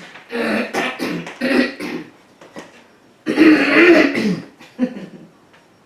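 A woman's voice making vocal sounds that form no recognisable words: a run of short syllables, then a louder, longer, wavering sound about three seconds in.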